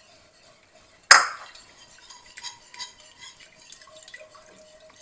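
Wire whisk stirring milk into a roux in an enameled cast-iron Dutch oven, with small light ticks of the whisk against the pot. A single sharp knock with a short ring comes about a second in.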